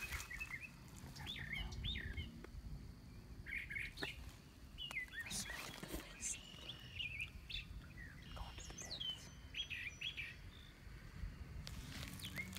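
A bird chirping in short, curling notes, repeated every second or so, over a low rumble.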